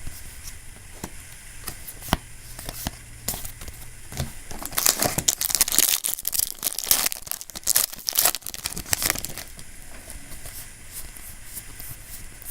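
Foil trading-card booster pack being torn open and its wrapper crinkled, a dense crackling that is busiest in the middle.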